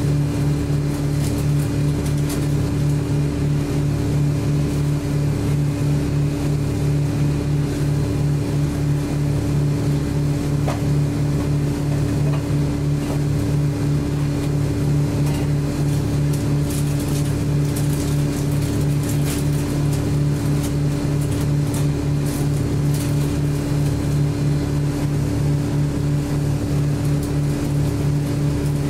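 Scania L94UB city bus heard from inside the cabin, its engine running at a steady, unchanging low hum with a faint regular pulse.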